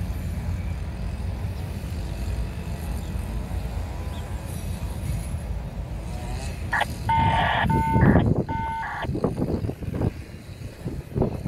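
Steady low rumble, broken by two short horn blasts about seven and eight seconds in, each a chord of several steady pitches, followed by a few short knocks.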